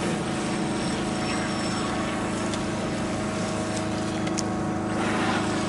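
Radio-controlled model speedboat running on the water, its motor giving a steady drone that grows a little louder near the end.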